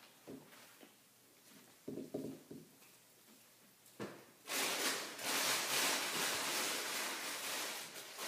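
Water running from a tap for about four seconds, starting about halfway through.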